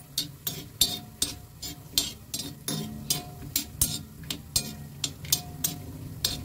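A steel spoon scraping and tapping on a tawa as almonds are stirred in ghee, in irregular clicks about two or three times a second, with a faint sizzle from the hot ghee beneath.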